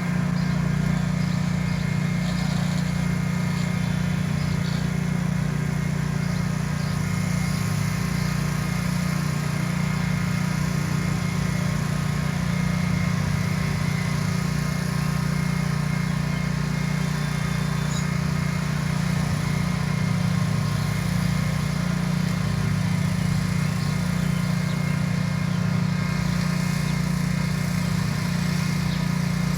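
Scag SWZ 36-inch walk-behind mower's engine running steadily and extremely loud, with no change in pitch.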